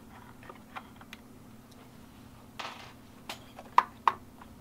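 Small metal and plastic clicks and taps as loosened 10 mm nuts are turned off the taillight studs by hand and the housing is handled, with a brief rustle midway and two sharper clicks near the end, over a faint steady hum.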